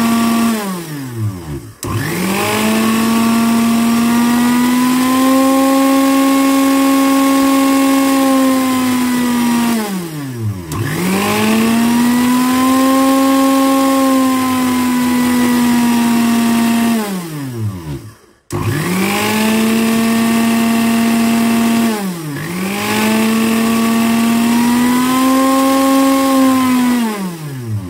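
Old blender's motor, rewired with a speed-control potentiometer, whining as the speed is turned down and up: it winds down and back up several times, cutting out entirely for a moment about two-thirds through before starting again.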